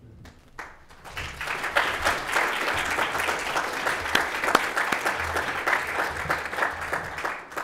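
Audience applauding: many hands clapping, starting about half a second in, swelling to a steady clatter and dying away near the end.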